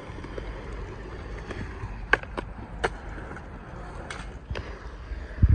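Small hard wheels of kick scooters and skateboards rolling on skate-park concrete, a steady low rumble with a handful of sharp clacks in the middle and a heavy low thump near the end.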